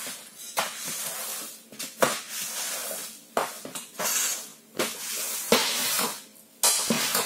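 Stiff-bristled, long-handled broom scrubbing a wet coach floor: irregular rough strokes about once a second, each starting sharply and fading.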